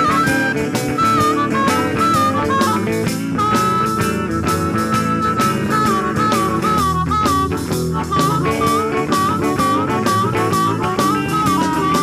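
Blues-style background music: guitar with a steady beat under it, and a lead melody that bends in pitch.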